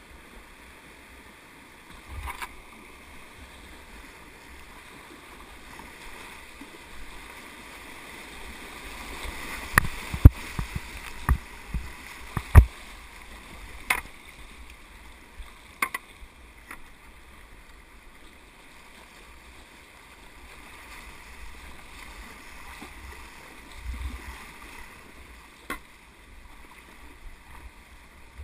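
River whitewater rushing around a kayak as it is paddled, with a run of sharp knocks and splashes from the paddle and boat about halfway through.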